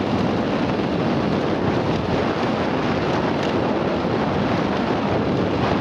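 Steady wind rushing over the microphone of a moving vehicle, with its engine and tyre noise on a gravel road underneath.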